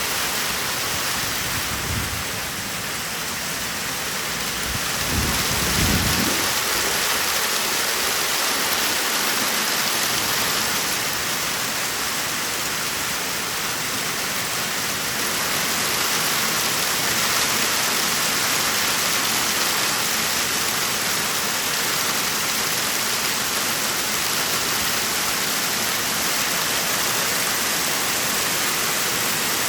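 Heavy rain mixed with hail falling steadily. A low rumble of thunder swells about five to six seconds in.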